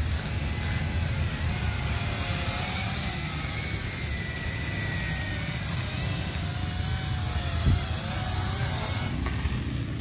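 Small toy quadcopter drone hovering low, its four electric motors and propellers whining in several pitches that waver up and down as the motors speed up and slow down, over a low rumble. A single thump about three-quarters of the way through.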